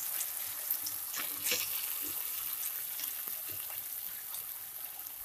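Chopped onion and capsicum sizzling in oil and sauces in a pan, with a steady hiss. A wooden spatula stirs them, adding scattered light taps and scrapes against the pan.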